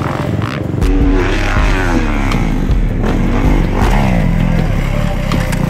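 Dirt bike engine being revved hard and backed off again and again as it is ridden over jumps, its pitch rising and falling several times.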